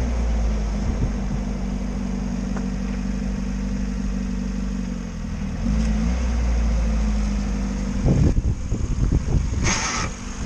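Lada Niva's engine running on LPG while the car crawls off-road over mounds, its pitch shifting slightly as the throttle changes. It turns rougher and irregular about eight seconds in, with a short hiss near the end.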